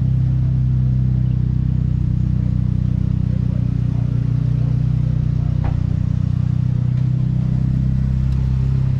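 Car engine running at low speed close by: a steady, unchanging low hum.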